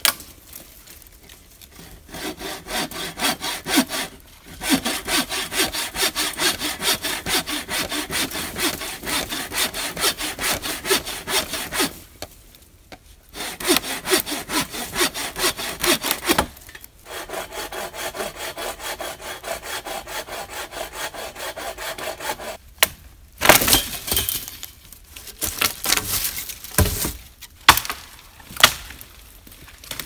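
A hand saw cutting through a fallen pine limb in runs of quick back-and-forth strokes, stopping briefly between runs. Near the end come a few louder cracks and snaps of dry wood.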